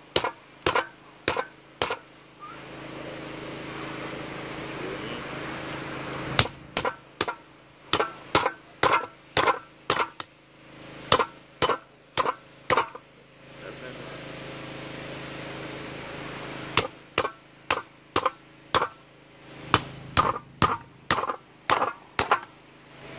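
Knife chopping through a large fish onto a wooden cutting board: sharp knocks about three a second, in several runs broken by short pauses.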